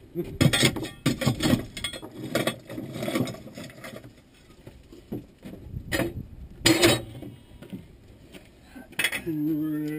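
Irregular metallic clanks and knocks from the Marshall steam roller's footplate and workings as it is handled. A steady low tone comes in near the end.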